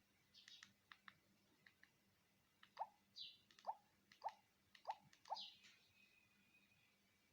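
Buttons pressed one after another on a Nokia 105 4G feature phone's keypad: a series of soft clicks and about five short plinks, each dropping in pitch, roughly half a second apart.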